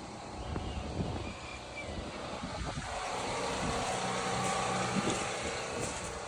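A passing vehicle, its noise swelling to a peak about four to five seconds in and then easing off.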